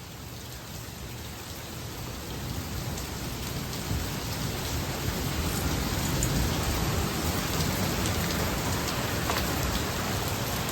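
Heavy rain pelting down, growing steadily louder, with a low rumble underneath.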